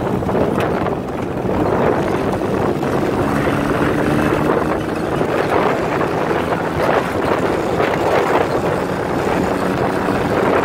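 Dune buggy engine running steadily under way across sand, heard from the seat, with wind noise on the microphone.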